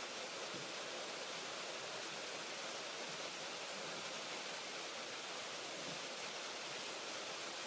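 Steady rushing of water in the polar bear pool: an even hiss with no distinct knocks or splashes.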